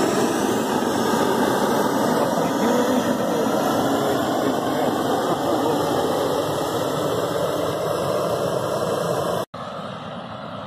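Gas burner rushing steadily as it blows hot air through a metal pipe into the mouth of a large paper balloon being inflated. About nine and a half seconds in the sound cuts out for an instant and goes on noticeably softer.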